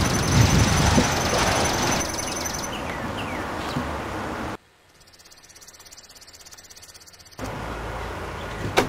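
Outdoor ambience: at first a loud noisy rumble with a fast, high pulsing chirr, then a few short falling bird chirps. Partway through, the sound cuts out for nearly three seconds, leaving only a faint pulsing hiss. It then returns with more chirps and a sharp click near the end.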